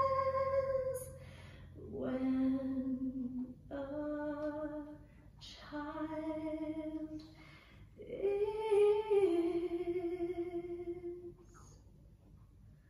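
Recorded music playing through a hi-fi loudspeaker: a female voice hums wordless, long held notes in several separate phrases, softly accompanied, and fades out near the end. The system is a Siemens 14G loudspeaker driven by an EL41 single-ended valve amplifier.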